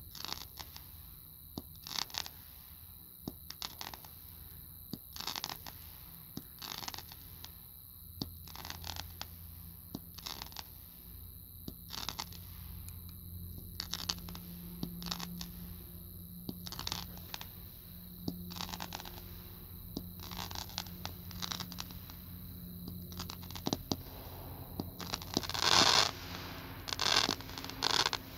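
Comet Roman candles firing shot after shot, a short pop and whoosh about every one to two seconds, with a louder, longer burst near the end.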